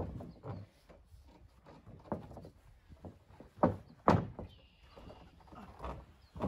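Scattered thuds and knocks from wrestlers moving on a backyard wrestling ring's mat, with two sharper knocks close together about two-thirds of the way through.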